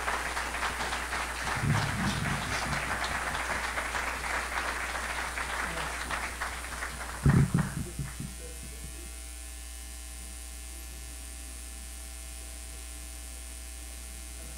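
Audience applauding for about seven and a half seconds, with two low thumps, one about two seconds in and a louder one as the applause ends. After that only a steady low hum.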